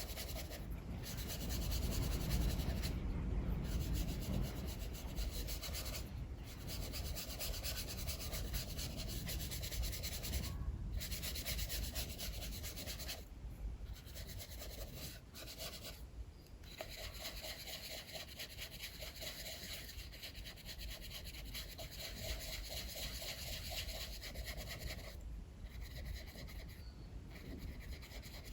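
Sketching strokes scratching across paper in quick runs, broken by short pauses. A strong wind rumbles low underneath, swelling a couple of seconds in.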